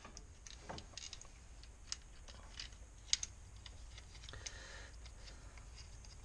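Faint, scattered light clicks and taps of metal engine timing parts and tools being handled by hand, over a low steady hum.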